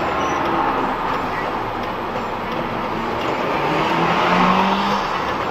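A car driving, with steady road and engine noise; about three and a half seconds in, a low engine note rises briefly in pitch.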